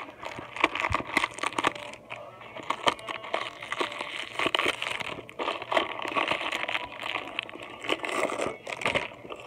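Crinkling and rustling of plastic wrapper packaging on a LOL Surprise Biggie Pets toy, with irregular clicks and knocks from hard plastic toy parts being handled.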